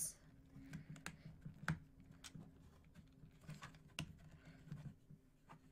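Small plastic Mega Bloks pieces clicking faintly as they are picked out of a pile by hand and fitted together: a scattering of light, separate clicks.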